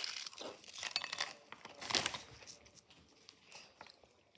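Crisp, irregular crunching from eating dry corn crackers, loudest about two seconds in and fading toward the end.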